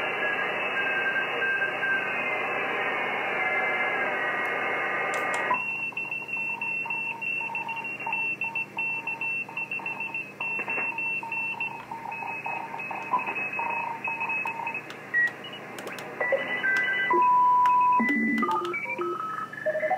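Shortwave receiver audio from an Icom IC-706 heard through a loudspeaker as the dial is tuned across the HF bands: hiss with many carriers sliding in pitch in the 30-metre band, then about five and a half seconds in it switches abruptly to the 40-metre CW segment. There Morse code tones beep on and off and change pitch as the dial moves, with one loud steady tone near the end.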